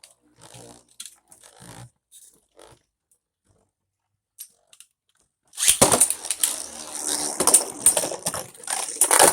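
Two Beyblade spinning tops launched into a plastic stadium a little past halfway, then spinning and clashing, with rapid clicks, rattles and scraping against the stadium floor and each other.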